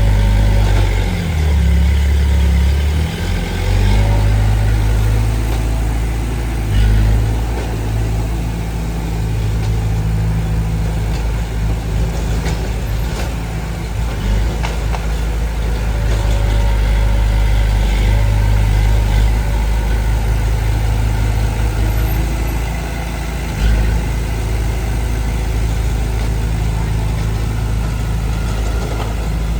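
Diesel engine of heavy earthmoving machinery running steadily, its low drone shifting in pitch several times as the load and throttle change.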